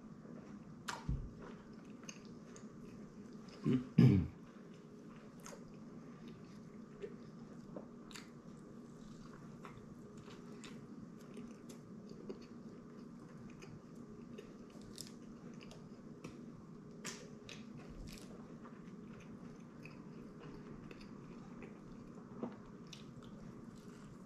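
A man chewing and biting into a Wendy's Triple Baconator bacon cheeseburger: quiet wet chewing with many small mouth clicks and smacks, and a louder thump about four seconds in.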